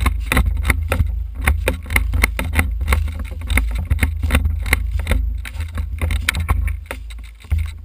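Footsteps crunching and rustling through dry leaf litter and grass, with many short irregular crackles, over a steady low rumble of wind and handling noise on a body-worn camera's microphone. The sound eases off shortly before the end.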